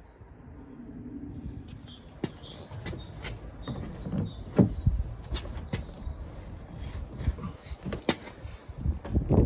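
Irregular clicks, taps and knocks of hands and a tool working the exterior door handle loose from a Land Rover Freelander 2 rear door, over low handling rumble, with a sharper knock near the end.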